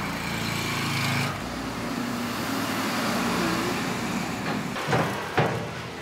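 Road traffic running by on the street, a steady engine hum and tyre noise, strongest in the first second. Two sharp clicks come close together about a second before the end.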